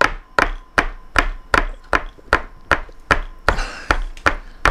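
Fists gripping a fork and knife upright, knocking on a tabletop in a steady beat of about two and a half knocks a second, with a brief pause near the end.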